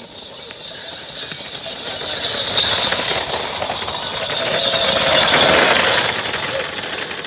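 A pair of racing water buffalo galloping past hauling a wooden cart on a dirt track: hoofbeats and a fast wheel-and-cart rattle that grow louder as they near and pass, loudest about three and again about five and a half seconds in.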